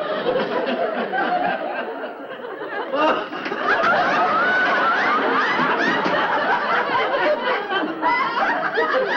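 Audience laughter, many people laughing at once, swelling louder about three seconds in and staying up.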